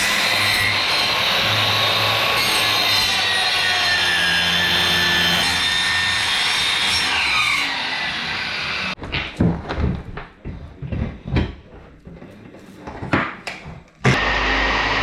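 Power saw cutting through the wood floor, with its pitch falling about two-thirds of the way through the cut. Then about eight short, uneven strokes, and the loud sound comes back near the end.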